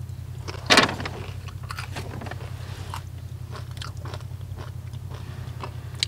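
Crunchy nacho tortilla chips being bitten and chewed, with one loud crunch about a second in, then steady crackly chewing and another bite near the end.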